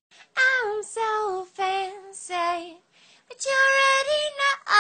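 A high-pitched voice holding a series of sung notes: four short ones, several dropping in pitch at their ends, then one long steady note.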